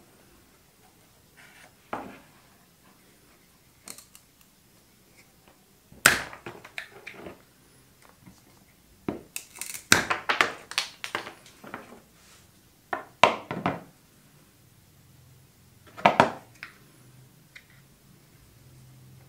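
Hand metal snips cutting through a thick twisted fibre rope in a series of separate cuts a few seconds apart, with a busier run of cutting about ten seconds in.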